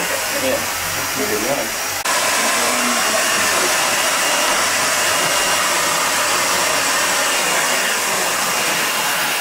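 Hair dryer blowing steadily, a little louder from about two seconds in, with faint voices under it at first.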